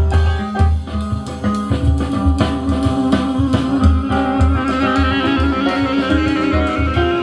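Jazz recording with drums, bass and guitar, played back over a hi-fi system; a held, wavering horn-like note comes in about halfway.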